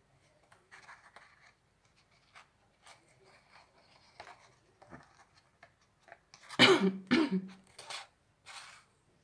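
Soft rustling of a coloring book's paper pages as one is handled and turned. About six and a half seconds in, a person coughs twice in quick succession, the loudest sound, followed by a couple of softer rustles or breaths.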